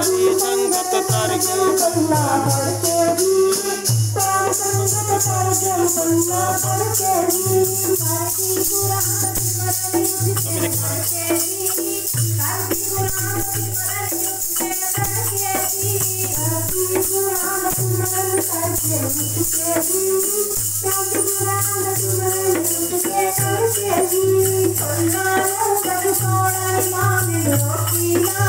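Women singing a devotional hymn into microphones over a PA, with a hand drum and a steady shaken jingling percussion keeping time.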